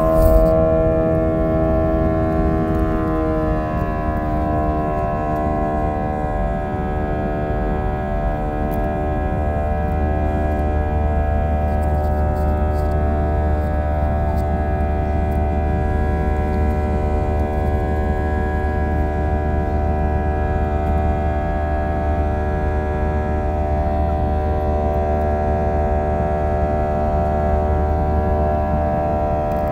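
Airliner engines droning inside the passenger cabin during the descent to land: a steady cluster of tones that drops slightly in pitch about three seconds in, over a constant low rumble.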